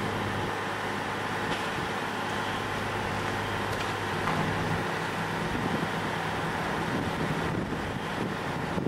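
Steady vehicle engine hum with a rush of road and wind noise; a second, slightly higher hum joins about four seconds in.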